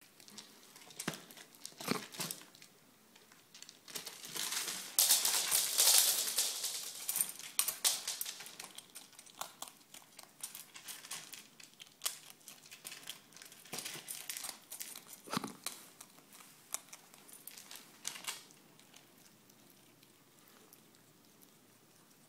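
A pet eating, with crinkling, crackling and crunching. The crinkling is loudest and densest about four to eight seconds in, then thins to scattered clicks and crunches that die away after about eighteen seconds.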